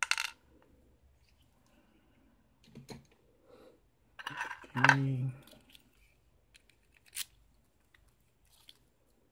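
Sharp metallic clicks and scrapes from a six-pin Silka Euro cylinder and a lock pick being handled, a few separate clicks with a louder clatter about halfway. A short voiced sound from a man comes with the clatter.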